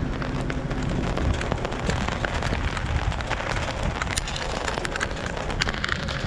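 Jeep tyres crunching over loose rock and gravel, a dense crackle of small stones, with the engine's low hum fading about two seconds in.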